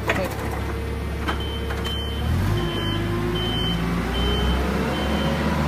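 Forklift running, its engine humming steadily, with its warning beeper starting about a second in and sounding short high beeps about every three-quarters of a second. A metal knock comes right at the start.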